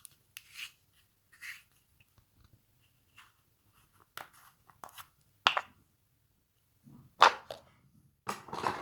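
Slime being squished and worked by hand: short, irregular sticky crackles and pops, the loudest about five seconds in and again near the end.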